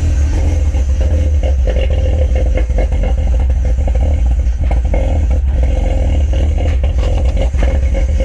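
Car engine running loudly at idle, its open intake sucking air with no cone filter fitted, and irregular ticking clatter over a steady low rumble.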